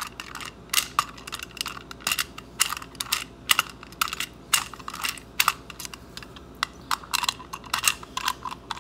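Antique surface-mount rim lock being worked with its bit key: a run of sharp, irregular clicks, several a second, as the lever and bolt move and the lock is handled. The freshly cut key operates this lock.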